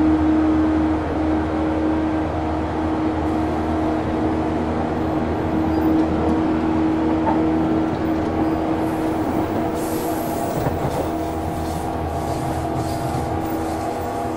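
On-board running sound of a JNR 185 series electric train at speed, recorded at the gangway between cars: the MT54 traction motors give a loud, steady tone over continuous rolling noise. The tone weakens for a few seconds past the middle, then comes back.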